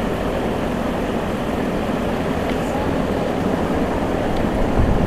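Wind buffeting the microphone: a steady low rumble with hiss over it.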